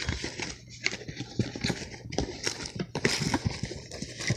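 A cardboard box being opened and its paper contents handled: irregular rustling and crinkling with many small clicks and knocks.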